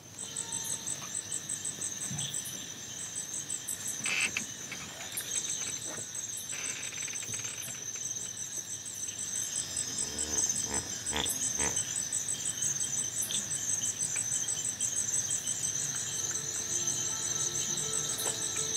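Crickets chirping at night: a high, rapidly pulsing trill over a steady high drone, with a few faint knocks and rustles.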